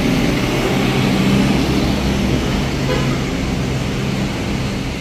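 Motor vehicle engine running amid road traffic noise: a steady low drone that eases off slightly near the end.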